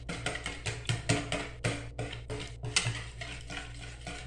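Wire whisk beating a mixture of egg yolks, oil and milk in a bowl, its wires clicking and scraping against the bowl in a quick, uneven rhythm of several strokes a second.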